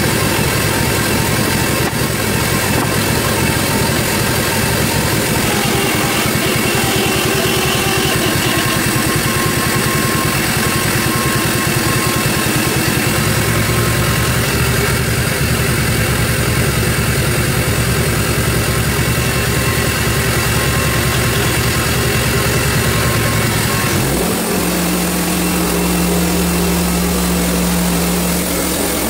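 Engine and band blade of a Hud-son Homesteader HFE30 bandsaw mill running steadily during a cut. The engine note shifts about halfway through. Near the end it settles into a smoother, steadier hum.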